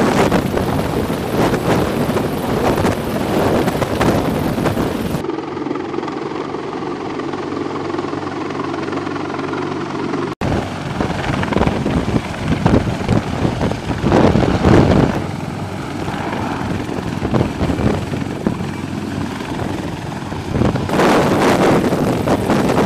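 Sikorsky CH-53E Super Stallion heavy-lift helicopter hovering low with an external sling load, its rotors and turbines running loud, with rotor wash buffeting the microphone. The sound changes for a few seconds after about five seconds to a steadier hum with held tones, then returns to the rough, pulsing rotor noise.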